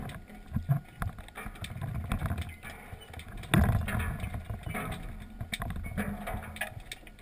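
Water churning and sloshing, with irregular knocks and clicks and a louder surge about three and a half seconds in.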